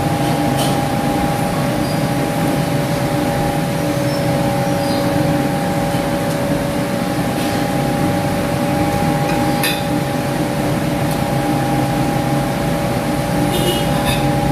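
A steady machine hum holding two even tones, with a few light clinks of cutlery on plates, one about ten seconds in and a few near the end.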